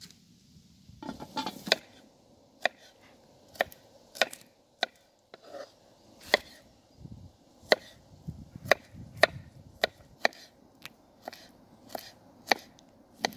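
Knife chopping garlic cloves on a wooden cutting board: sharp, uneven knocks of the blade striking the board, about one or two a second, starting about a second in.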